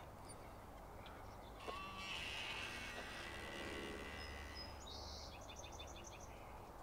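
Quiet outdoor ambience: a low, steady background hum, with a short run of faint high chirps near the end.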